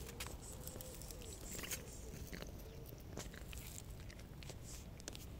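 A cat crunching dry kibble, with irregular, sharp, quiet crunches as it chews.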